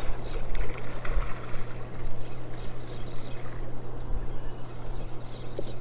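Wind buffeting the microphone in gusts, with a steady low hum underneath.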